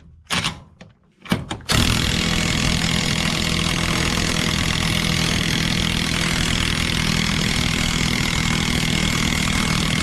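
Porter-Cable cordless impact wrench hammering in reverse on a tight bolt: two short trigger blips, then continuous hammering from about two seconds in. The nut is turning hard on threads deformed by overtightening.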